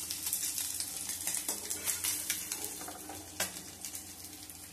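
Small mourola fish frying in hot mustard oil in a nonstick pan, giving a steady crackling sizzle. A few sharp clicks come from the slotted spoon knocking the pan as the fried fish are lifted out, the loudest about three and a half seconds in.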